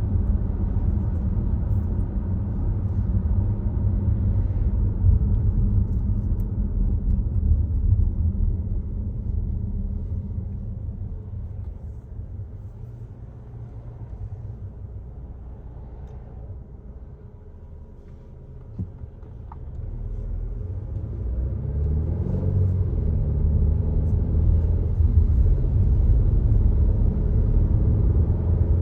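Volvo XC60 driving: a steady low road and engine rumble. It fades down for several seconds in the middle, then builds again with a rising engine note.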